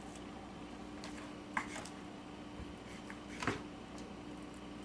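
Knife cutting raw meat on a cutting board: two sharp knocks of the blade against the board, about two seconds apart, with a few faint ticks, over a steady low hum.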